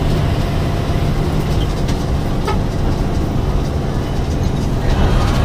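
Cabin sound of a Hino AK8 bus driving at speed: the diesel engine runs with a steady drone under road and tyre noise, and a few light rattles come from the bus body.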